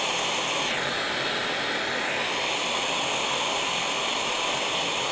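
MAPP gas torch burning with a steady hissing roar as it heats a fluxed copper sweat coupling, the stage of waiting for the flux to smoke before the solder goes in. Its tone shifts about a second in and again a second or so later as the flame plays on the fitting.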